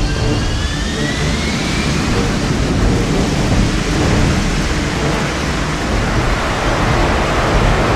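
Fighter jet engine at high power: a whine rises over the first two seconds and gives way to a loud, steady, rumbling roar of jet exhaust, with the afterburner lit.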